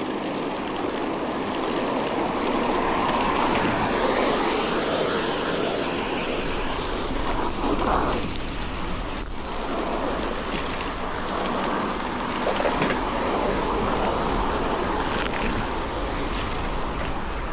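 Steady rushing noise of wind and road on the microphone of a camera riding on a moving bicycle.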